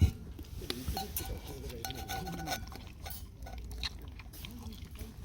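Light clinks, taps and scrapes of utensils against camp tableware while eating, with a sharper knock at the very start.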